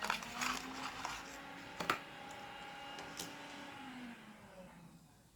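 A few sharp clicks and taps from handling a small epoxy adhesive pack, the loudest about two seconds in, over a faint steady hum that fades out near the end.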